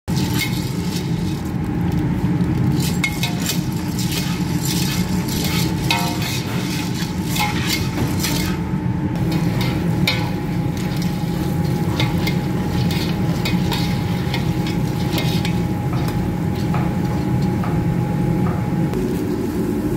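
Popcorn kernels stirred with a metal skimmer in a stainless steel pot, rattling and scraping against the steel, with sharp pops as kernels burst in the heat. A steady low hum runs underneath.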